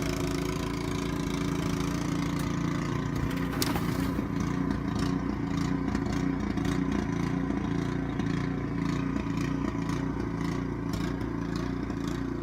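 Snowblower engine running steadily close by, its chute throwing snow against the door. There is a sharp knock about three and a half seconds in, then snow keeps hitting the door.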